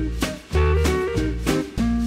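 Upbeat background music with a bass line and a steady drum beat.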